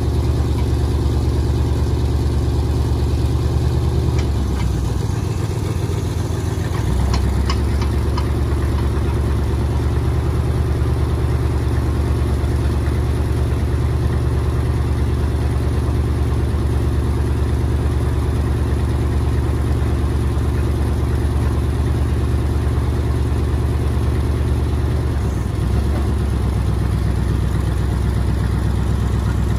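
1962 Dodge D500 truck engine running steadily at idle while its hydraulic knuckle boom is worked. The engine note shifts and dips briefly about four to seven seconds in, and changes again near the end.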